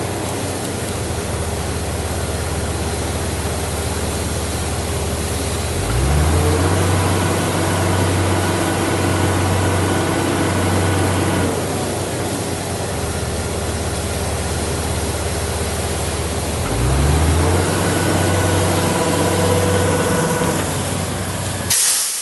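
Borewell drilling rig's engine running steadily, twice speeding up with a rising pitch, holding the higher speed for several seconds and then dropping back. Near the end a loud hiss starts suddenly.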